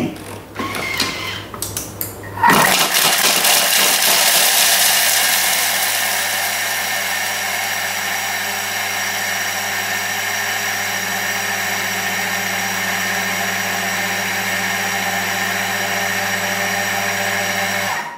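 Thermomix TM6 running at speed 10, its blade grinding cubes of Parmesan cheese. It starts suddenly about two and a half seconds in, louder for the first few seconds, then a steady high-speed whirr, and stops abruptly after about fifteen seconds.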